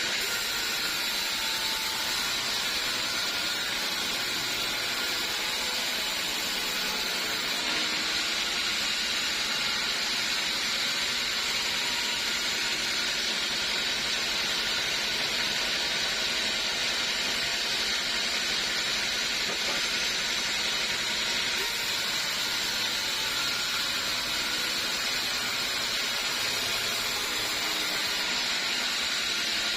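Sawmill saw running steadily, a continuous hissing machine noise with no breaks or changes.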